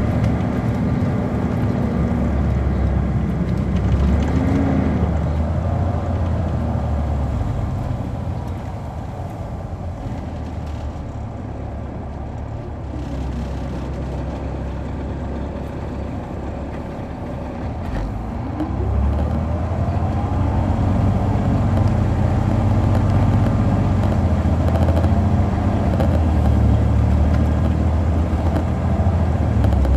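Caterpillar C13 diesel engine of a 2007 MCI D4500CL coach heard from on board, running steadily. It quietens for several seconds around the middle, then rises in pitch and level as the bus pulls harder about two-thirds of the way through.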